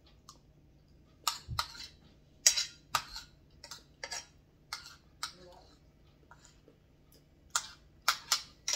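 Close-up eating sounds: a run of sharp, irregular clicks and crunches, with a pause of about two seconds past the middle before a last cluster.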